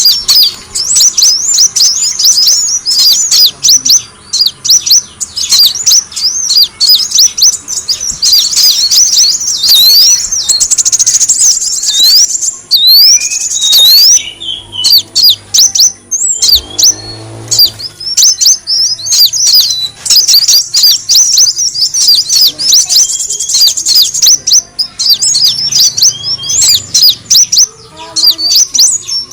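Kolibri wulung sunbird calling: a rapid, busy stream of high, thin chirps and quick pitch-sweeping notes, a lure recording of the bird's excited calls.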